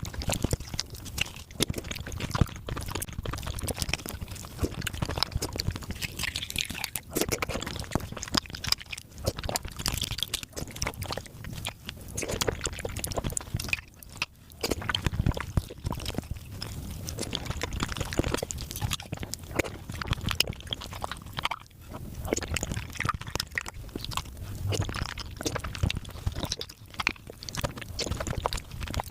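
Close-miked mukbang eating sounds played fast: a dense, continuous stream of quick wet chewing, slurping and crunching clicks, with a couple of brief pauses.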